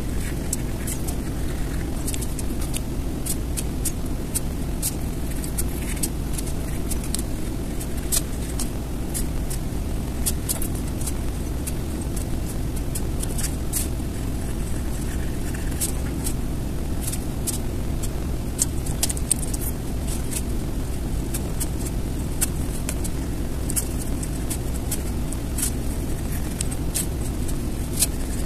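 Steady low background rumble with many faint, scattered high-pitched ticks over it.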